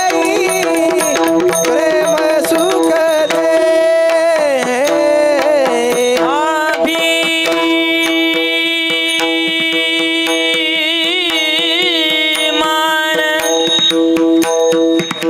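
Marathi abhang devotional music: pakhawaj drumming under steady held notes, with a high, wavering melodic line rising and falling about 4 seconds in and again about 10 seconds in.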